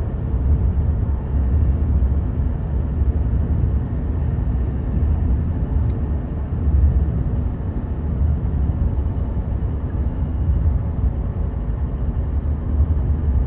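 Steady low road and engine rumble inside the cab of a truck towing a fifth-wheel RV on the highway, with a single small click about six seconds in.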